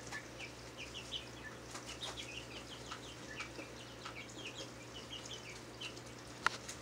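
Goldfish gulping food at the water surface: many quick little pops and slurps, several a second, over the steady hum of an aquarium's hang-on-back filter. A single sharp click near the end.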